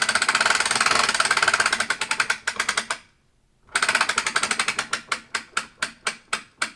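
Hand-cranked boat winch on an archery draw board, its ratchet pawl clicking rapidly as it draws a compound bow. It stops for a moment about three seconds in, then clicks again in slower, separate clicks as the bow nears full draw.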